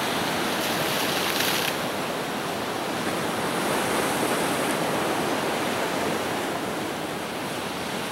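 Ocean surf breaking and washing over rocks: a steady rush of white water, with a brighter hiss about a second and a half in.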